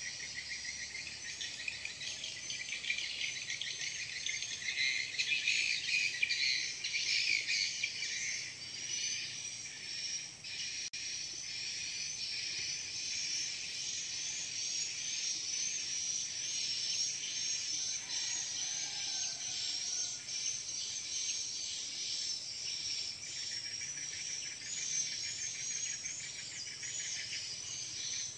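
Insects trilling and birds chirping together in a dense, continuous high-pitched chorus, a little louder a few seconds in.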